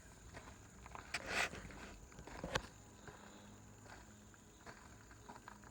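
Quiet outdoor background with a brief rustle about a second in and a single sharp click a little later.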